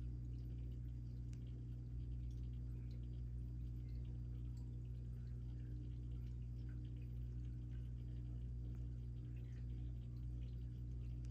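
Aquarium equipment running: a steady low hum made of several steady tones, with faint scattered ticks and trickles of water above it.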